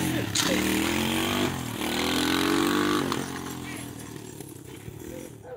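A Chinese-made 250cc dirt bike engine pulls away under throttle. Its pitch climbs, drops briefly about a second and a half in, climbs again, then fades as the bike rides off.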